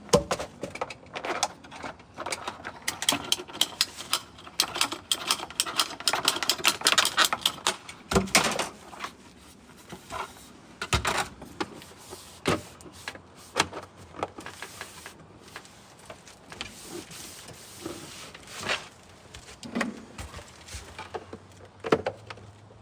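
Plastic line-set cover (line hide) being handled and fitted: a dense run of rapid clicks and rattling knocks for the first eight seconds or so, then scattered single knocks and taps.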